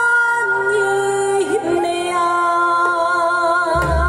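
A woman singing a Korean song into a microphone over a backing track, holding long notes with vibrato. The low bass of the accompaniment drops out and comes back near the end.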